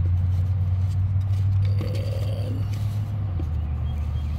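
Steady low engine hum, like a nearby vehicle idling, which drops slightly in pitch about three seconds in. Over it, faint scraping as a cardboard box and its packaging insert are handled.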